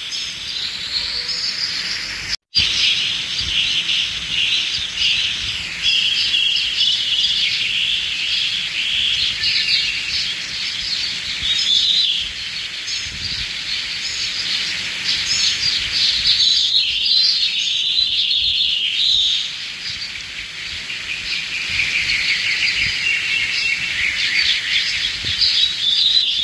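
Many small birds chirping and twittering continuously in a dense chorus. The sound drops out briefly about two and a half seconds in.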